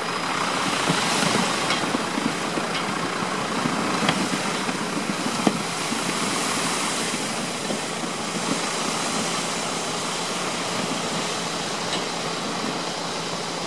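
Gravel sliding out of a tipper truck's raised bed onto the ground, a steady hiss with a few separate stone clicks, over the truck's engine running at idle.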